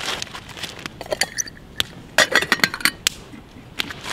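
Metal lid clinking and rattling as it is fitted onto a steel bail-handled pot, with a quick run of ringing clinks about halfway through.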